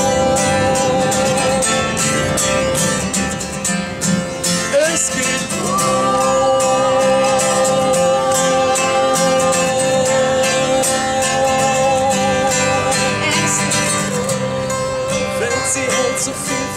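Acoustic guitar strummed steadily while a man and a woman sing long, drawn-out notes with a slight waver, without clear words.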